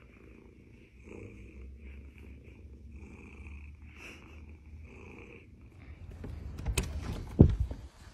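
Domestic cat purring, a soft steady purr that swells and fades with each breath, about once a second. Near the end a few loud knocks and rustles cut in.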